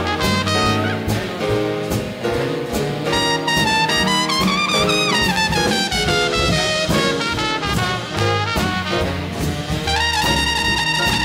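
Jazz trumpet solo with a big band, piano and rhythm section behind it. The trumpet swoops up and back down about four seconds in and holds a high note near the end.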